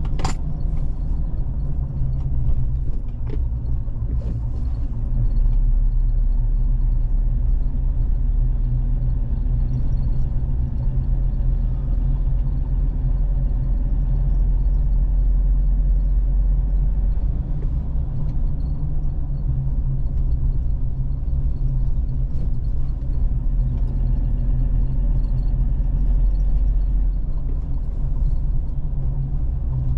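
Steady low rumble of a road vehicle driving along, with engine and road noise, heard from the moving vehicle. A sharp click comes just after the start.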